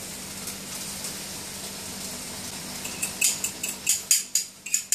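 A spoon scraping and tapping against a small bowl to get the last of the sauce out: a quick run of clinks, several a second, starting about three seconds in, over a steady low hum.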